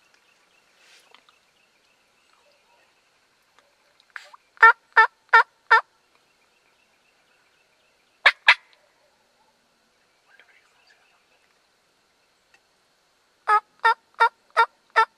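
Hen turkey yelps from a hunter's turkey call: a run of four evenly spaced notes about four and a half seconds in, two more just after eight seconds, and a run of five near the end.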